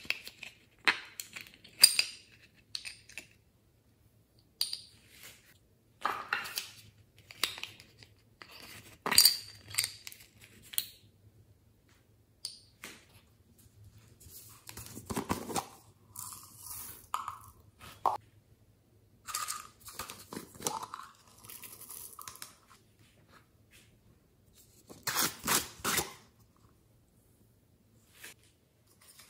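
Close-up handling of small plastic toy containers: irregular clicks, taps and short scraping rustles, with a few brief squeaky tones of plastic in the middle.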